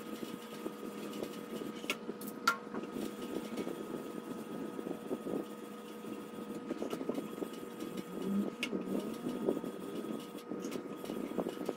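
30-micron diamond film on a guided sharpener's bar rubbing back and forth along the edge of a ceramic knife, a steady scratching, with one sharp click about two and a half seconds in. The coarse grit is grinding out chips in the blade's edge.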